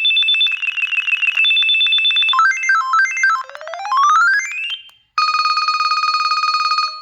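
LG UX390 cell phone playing its preloaded ringtones. First comes a high warbling electronic trill, then a short stepped beeping melody and a sweep rising steeply in pitch. After a brief gap about five seconds in, a steady, fast-pulsing electronic ring starts.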